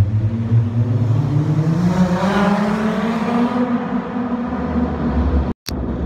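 Dodge Charger SXT's V6 engine and exhaust accelerating, the exhaust note rising in pitch over about three seconds and then holding steady, echoing off the concrete of a parking garage. The sound cuts out for a moment near the end.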